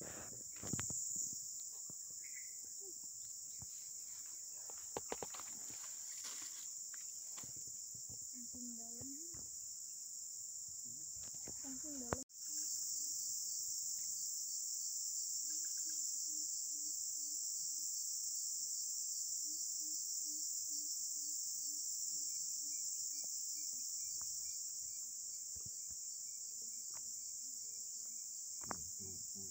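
Steady high-pitched drone of a chorus of insects, louder after a cut about twelve seconds in. In the first part, soft rustles of hands handling a fishing hook and bait.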